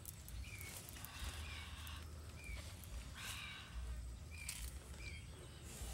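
Outdoor ambience: a bird gives a short high chirp every second or two, over rustling and scraping of leaves and bamboo being handled, with a few light clicks.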